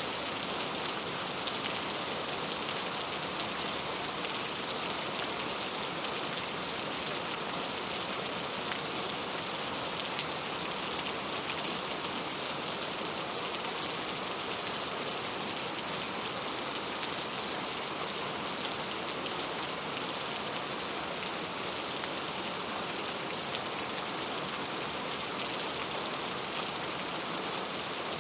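Heavy rain falling steadily: a dense, even hiss with fine drop patter, unchanging throughout.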